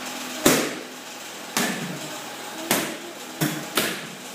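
Punches in boxing gloves and kicks smacking into focus mitts: five sharp strikes, the loudest about half a second in, the last two in quick succession near the end.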